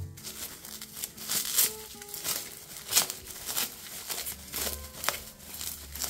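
Packaging being opened by hand: irregular crinkling and rustling with scattered sharp crackles.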